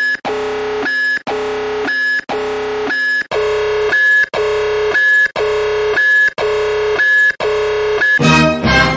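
Electronic countdown buzzer sound effect: a harsh, steady buzzing tone sounding about once a second, each lasting most of a second, as a timer ticks down. Near the end it gives way to a different, denser electronic sound.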